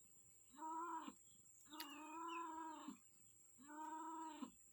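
A cat meowing three times: drawn-out, steady-pitched meows, the middle one the longest, with short gaps between them.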